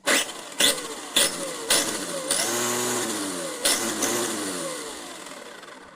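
Tamiya TT01 RC car's electric motor and gear drive revved with the wheels in the air: about five sharp bursts of noise on sudden throttle blips, the whine rising and falling between them, then running down toward the end. The loud noise on sudden acceleration comes from a worn spur gear and a worn motor pinion.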